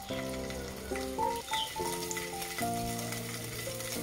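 Paneer cubes sizzling and crackling as they fry in a little hot vegetable oil in a kadai. Background music of held chords changing about every half second plays over it.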